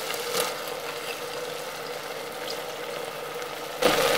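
Tomato masala sizzling steadily in an Instant Pot on sauté mode, with a steady hum underneath and a few faint clicks as washed toor dal is dropped in by hand. About four seconds in, a silicone spatula starts stirring the pot and the sound gets louder.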